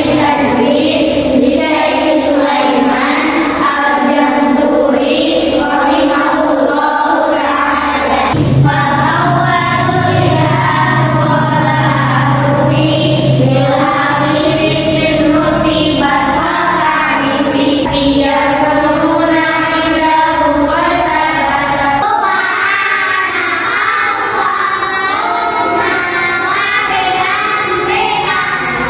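A group of children singing together in unison, with a low steady hum underneath for several seconds in the middle.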